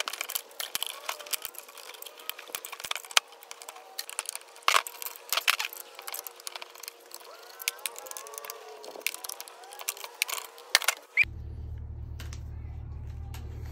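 Metal clicks, taps and scraping as a screwdriver pries apart a vacuum cleaner motor's housing, with a few short squeaky scrapes in the middle. About eleven seconds in it cuts to a steady low hum.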